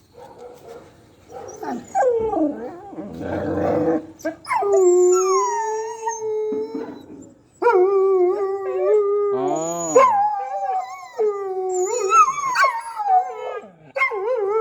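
A pet dog howling: after some rough low grumbling sounds, it lets out a string of long drawn-out howls, several in a row with brief breaks, some wavering in pitch.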